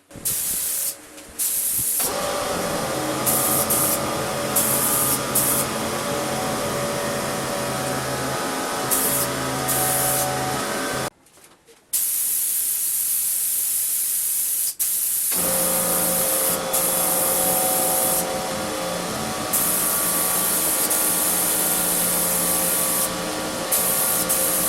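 Electric woodworking power tool running steadily with a loud airy hiss over a motor hum. It stops for about a second near the middle, then runs again.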